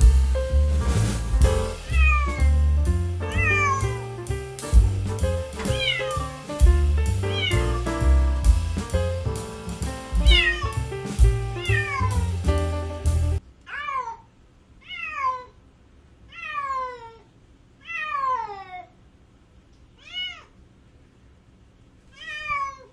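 Kittens mewing again and again, each mew a short, high cry that falls in pitch. For the first half they sound over background music with a steady beat. The music cuts off about halfway, and about six more mews follow on their own, spaced a second or two apart.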